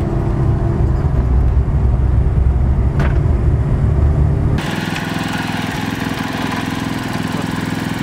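Engine noise with a heavy low rumble that changes abruptly about four and a half seconds in to a steady, buzzing small engine running, with fast even firing pulses.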